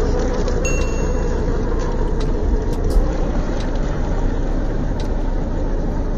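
HB ZP1005 Defender radio-controlled crawler truck driving through a shallow rocky river: a steady rushing, splashing noise with a few sharp knocks.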